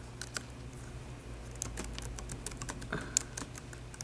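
Typing on a computer keyboard: irregular key clicks, with a few sharper taps about three seconds in.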